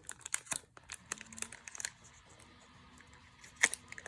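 Foil Pokémon card booster pack being torn open, its wrapper crackling and crinkling in quick sharp bursts, with one louder snap of the foil a little before the end.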